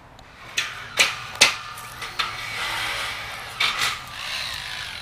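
Sharp metal clanks and knocks from steel carport framing being handled and set down: three in quick succession in the first second and a half, and another pair about three and a half seconds in, with a rough scraping noise between them.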